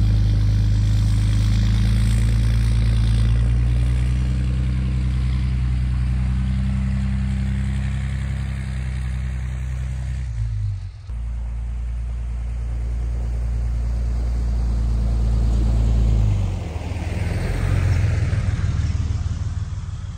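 Dodge Ram 2500 pickup's engine running steadily, warming up after a cold winter start, with a brief break about halfway through.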